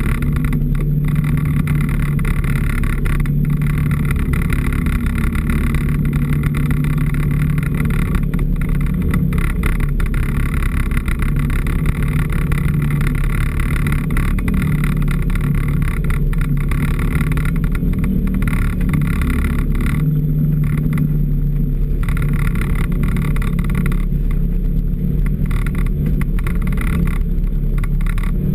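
A small off-road vehicle's engine running at a steady, even pitch as it drives along a snowy trail, heard close up from a camera mounted on its hood.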